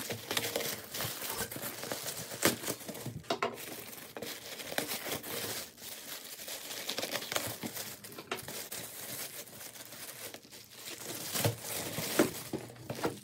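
Thin plastic shipping bag crinkling and rustling as it is cut open with scissors and pulled off a shoebox, with scattered sharp crackles, the loudest about two and a half seconds in and near the end.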